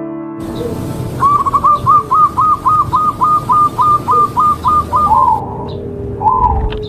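A bird calling: a fast, even run of about fifteen identical short up-and-down whistled notes, about four a second, then two slower falling notes near the end, over a steady outdoor hiss.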